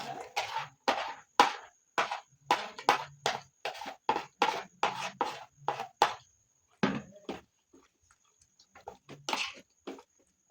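Eating sounds of someone chewing rice and bean stew close to the microphone: a regular run of chewing smacks, about two or three a second, that thins out to scattered mouth sounds after about six seconds.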